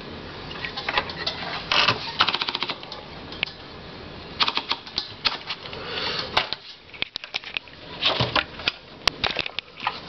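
1949 Empire Aristocrat typewriter's carriage and platen mechanism worked by hand: sharp clicks and clacks, with a short run of rapid ratchet clicks about two seconds in and more clusters of clicks in the second half.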